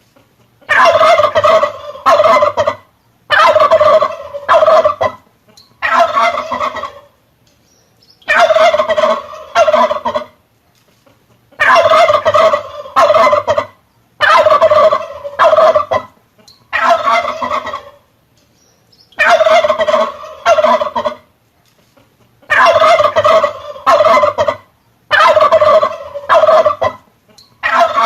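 Male turkey (tom) gobbling over and over, a loud rattling gobble every two seconds or so, often two in quick succession, with short silences between.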